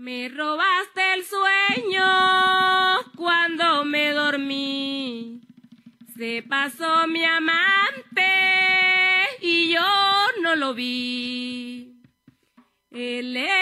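A woman singing a Colombian folk song solo, with long held notes and sliding pitch, in two phrases with a short break about five seconds in; a faint low hum runs under the voice.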